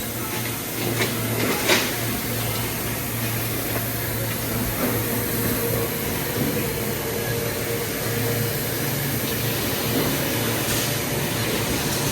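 Automatic can body welding machine running: a steady hum and hiss, with a couple of sharp clicks from its mechanism about a second in.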